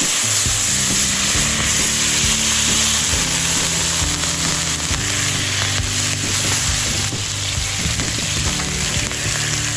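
Steak frying in a hot pan, a steady loud sizzle of fat and juices that starts abruptly.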